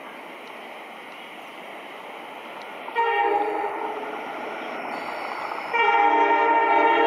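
WDG-4 diesel locomotive hauling an express train, approaching with a steady rumble, then sounding its multi-tone air horn: one blast about three seconds in that fades, and a second blast starting near the end.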